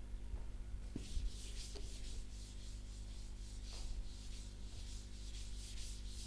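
Chalkboard being wiped clean with a duster: a series of quick scraping strokes, starting about a second in.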